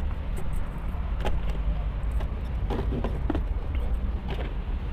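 Rubber air intake hose being worked off a turbocharger's inlet: a few faint knocks and rubs over a steady low rumble.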